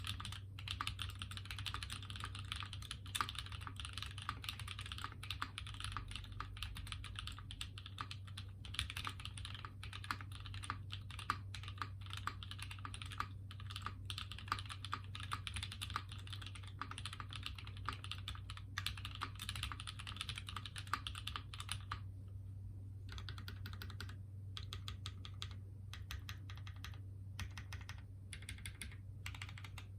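Typing on a custom 60% HHKB-layout mechanical keyboard with Cow switches lubed with Krytox 205g0 and filmed, on a nylon half plate with GMK keycaps: a fast, steady run of keystrokes. About 22 seconds in it pauses briefly, and the strokes that follow are sparser.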